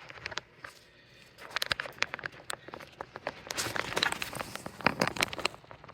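Flat ribbon cables and their plastic connectors being handled and pushed into place inside a printer. A quiet start, then from about a second and a half in a run of irregular rustling and small clicks.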